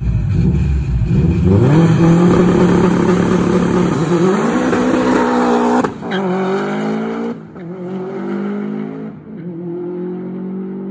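Car engine running hard at high revs, rising in pitch over the first few seconds, then dropping sharply about six seconds in and running on more steadily and quieter.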